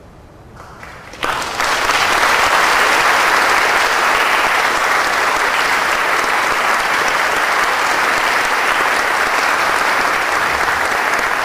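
Audience applause at the end of a string orchestra's performance. It breaks out about a second in from near quiet, swells quickly, and then carries on as steady, dense clapping.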